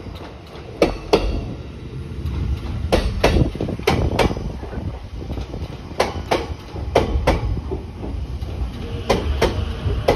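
Series E257 electric train rolling slowly past at a steady speed over a low rumble, its wheels clicking over a rail joint in pairs, one pair per bogie, the pairs coming about one and two seconds apart.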